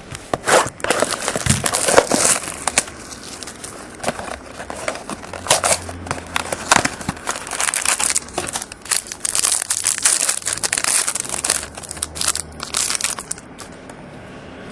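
A trading-card pack's wrapper being torn open and crumpled: a run of irregular crinkling and tearing rustles that dies away near the end.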